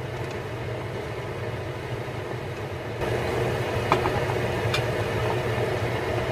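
Battered chicken pieces deep-frying in hot oil: a steady sizzle over a constant low hum, growing louder about three seconds in, with a couple of light clicks of chopsticks against the pan.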